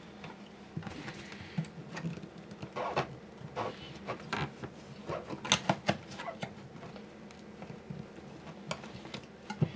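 Irregular small clicks, taps and scraping of hands handling a guitar bridge and a slip of paper on the spruce top of a Martin D-28 acoustic guitar, with a run of sharper clicks about halfway through.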